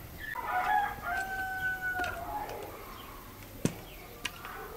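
A rooster crowing once, one long call held level for about two seconds. Two sharp knocks follow near the end, the first of them the loudest sound.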